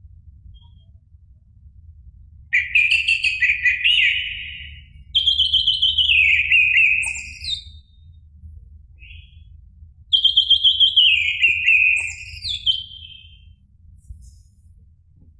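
Orange-headed thrush singing: three loud, rich phrases of slurred whistles that sweep mostly downward, a few seconds apart, with a faint steady low rumble underneath.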